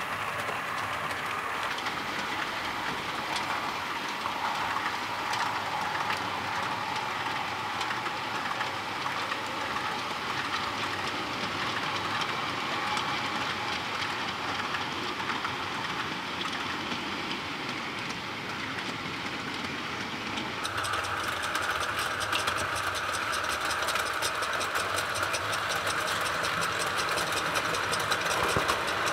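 Model railway train running along the track: a steady whirr of the locomotive's motor and rolling wagons, with fine clicking of the wheels over the rail joints. About two-thirds of the way in the sound turns brighter and slightly louder.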